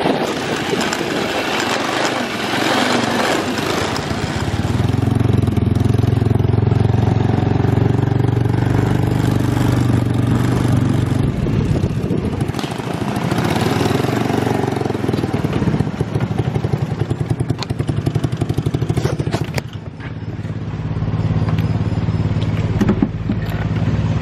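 Off-road buggy engine running as the buggy drives over rough ground, with a noisy rush of wind at first. Near the end the engine note drops off briefly, then runs on steadily.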